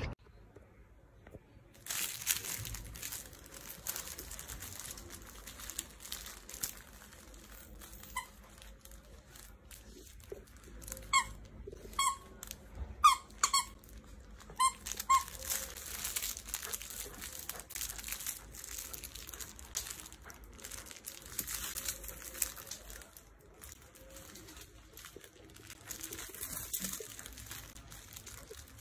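A dachshund chewing and tugging a plush dog toy: crinkling and rustling throughout, with a run of short, sharp squeaks from the toy in the middle.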